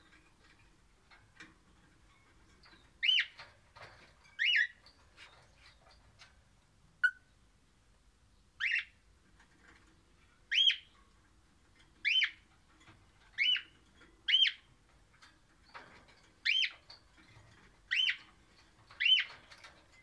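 Crimson rosella (Pennant's parakeet) giving a series of about ten short, clear whistled notes, each rising and falling, one every second or two.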